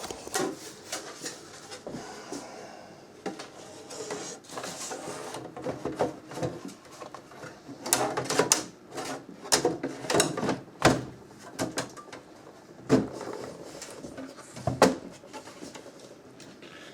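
Irregular clicks and knocks of hard plastic being handled: the rear case of a Macintosh Classic being fitted back onto the computer.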